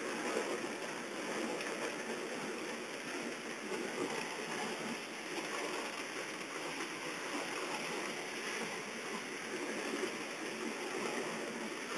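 Heavy rain falling, a steady hiss heard from inside a car through its open window.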